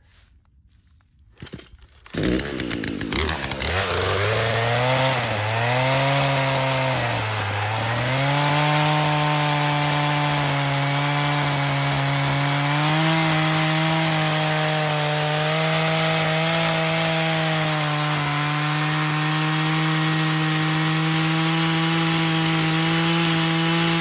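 Two-stroke chainsaw starting up about two seconds in, its pitch wavering as it is revved, then running loud and steady at high speed as it cuts through wood.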